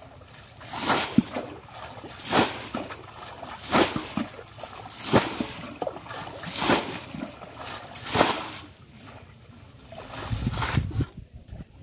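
Muddy ditch water being scooped and thrown out with a plastic basin: a splash and slosh about every second and a half, six times. Near the end comes a longer, lower sloshing as the water is stirred by wading.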